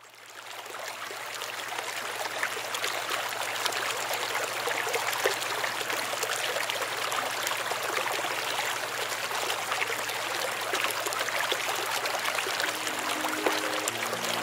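Running water of a stream, a steady babbling rush that fades in at the start. Music notes come in near the end.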